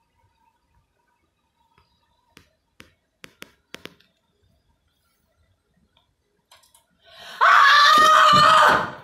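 A few faint clicks and taps, then a loud, high-pitched scream held steady on one pitch for about a second and a half before it cuts off.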